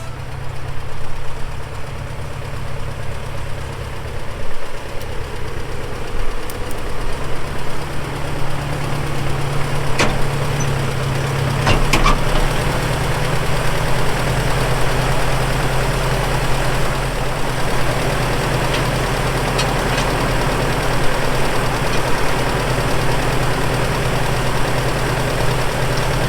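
An engine running steadily, with a few sharp clicks about ten and twelve seconds in.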